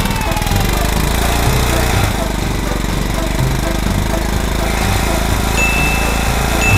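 Little Tikes Gas 'n Go toy lawn mowers playing their electronic petrol-engine sound effect, a steady rhythmic mower-motor rumble from a small speaker. A steady high beep comes in near the end.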